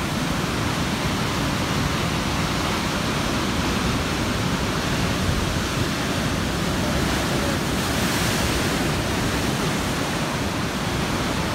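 Heavy surf breaking and churning over a rocky shore in rough seas: a dense, steady rush of waves and foam, swelling a little about eight seconds in.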